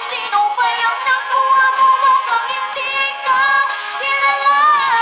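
A young girl singing a Filipino ballad, holding long, wavering notes.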